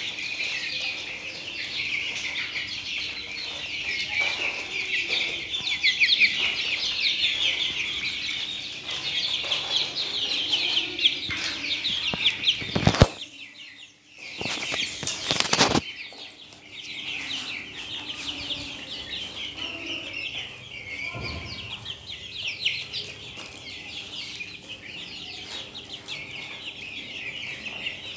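A flock of young Australorp chickens calling continuously, many short high peeps and clucks overlapping. About halfway through, the calls break off for a moment between two loud knocks.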